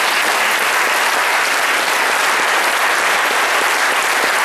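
Audience applauding: a loud, dense, steady round of clapping.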